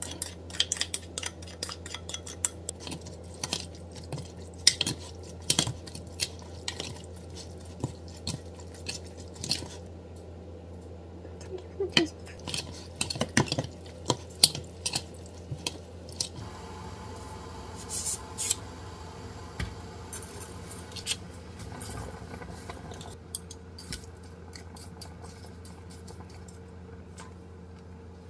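Chopsticks clicking and scraping against a plastic mixing bowl as kimchi is stirred together with its seasoning sauce, with many quick clicks. About halfway through the clicks thin out to a few scattered taps over a changed, steadier background as noodles are stirred in a pot on the stove.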